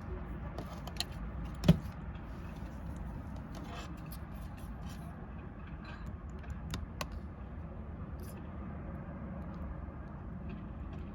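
Clear slime being handled, giving scattered small sticky clicks and pops and one louder knock a little under two seconds in, over a steady low background rumble.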